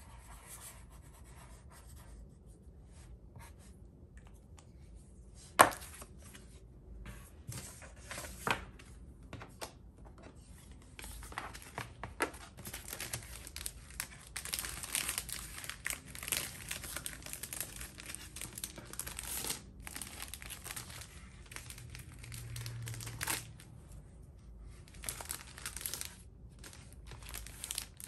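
Clear plastic sleeves and paper cash envelopes being handled and slid about, crinkling and rustling, with a few sharp taps, the loudest about five and a half seconds in. The crinkling becomes nearly continuous from about eleven seconds in.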